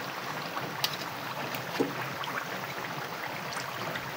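Batter-coated banana fritters frying in hot oil in a wok: a steady sizzle with a couple of sharp pops.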